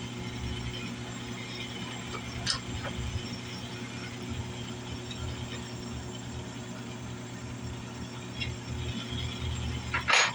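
Drill press running steadily with no cut being made, its motor and belt drive giving an even hum. A few short sharp clicks break in, the loudest near the end.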